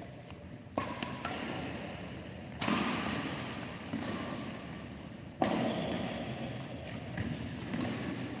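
Badminton rackets striking a shuttlecock during a rally, about six sharp hits spaced irregularly a second or so apart, each echoing in the hall.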